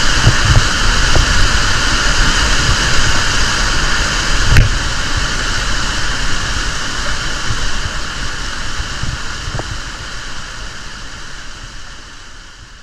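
Rushing water of a monsoon waterfall, a loud steady wash of noise, with a single sharp knock about four and a half seconds in; it fades out over the last few seconds.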